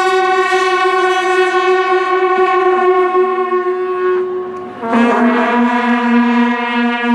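Music from the light show over loudspeakers: long, steady horn-like notes. A higher note holds until about four seconds in, then after a brief dip a lower note comes in.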